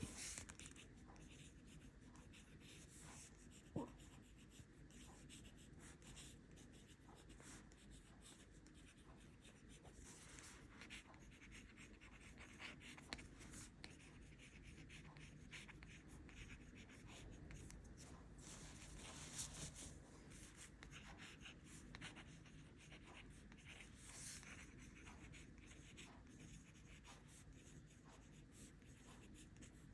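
Faint scratching of writing on paper, a steady run of small scratchy strokes and ticks.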